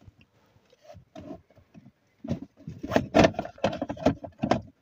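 Hard plastic clicks and knocks as a cup holder insert is pushed and worked into place in a 2004 Toyota Camry's centre console: a few faint taps at first, then a quick cluster of knocks from about halfway.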